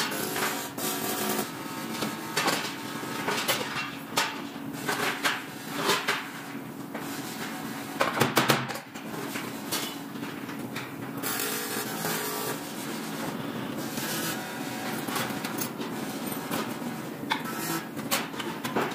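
Metal fabrication shop noise: repeated knocks and clanks of aluminium frame parts being handled and worked, over a steady low machine hum, with a few short stretches of harsher noise.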